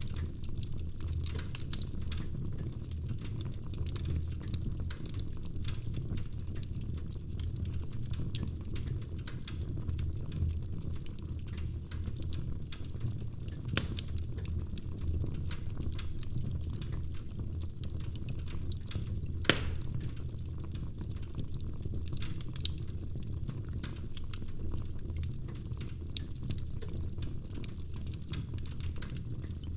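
Wood fire crackling: a steady low rumble of flames under frequent small pops and snaps, with one sharper pop about twenty seconds in.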